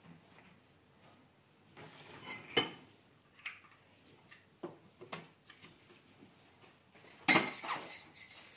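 Metal frame tubes and plastic corner fittings of a folding camping kitchen knocking and clicking as they are handled and pushed together: scattered short knocks, with a sharper knock about two and a half seconds in and a louder clatter about seven seconds in.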